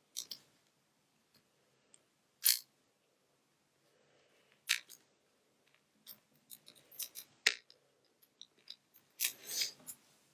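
Small clicks and short scrapes of tools and parts being handled while an iPhone 6s is put back together: a handful of sharp clicks and rasps spread through, the loudest about two and a half seconds in and several close together near the end.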